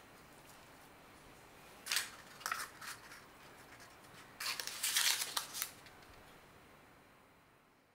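Paper cupcake case crinkling as it is handled and a shaped bao dough ball is set into it, in two short spells of rustling about two seconds and four and a half seconds in.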